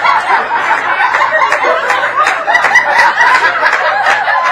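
A theater audience laughing loudly, many voices chuckling and laughing at once.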